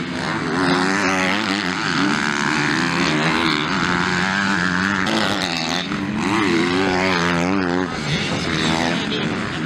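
Motocross dirt bike engines revving up and down as the bikes race. Several engine notes overlap and waver in pitch throughout.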